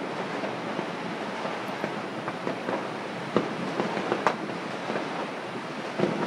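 Distant fireworks going off across the area in a continuous din of many faint bangs, with a few sharper bangs standing out about three seconds in, just past four seconds, and near the end.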